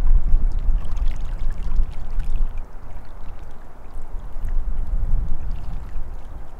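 Wind gusting on the microphone in a low rumble that eases for a couple of seconds midway, with small waves lapping and splashing at a pebbly lake shore.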